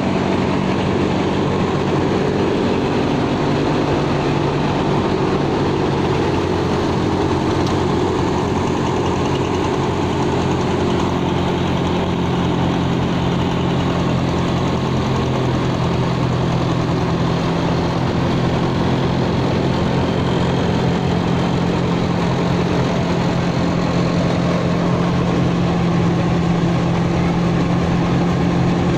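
Engine-driven rice huller running steadily while paddy is fed through it: a continuous engine drone with a constant hiss over it.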